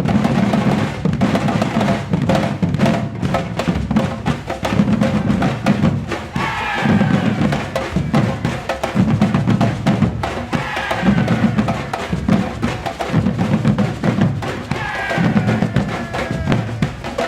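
Batucada drum ensemble in the Afro-Bahian style playing a loud, dense percussion groove, deep drum beats in repeating blocks under a busy layer of sharper strokes. A brief falling high sound rises above the drums three times.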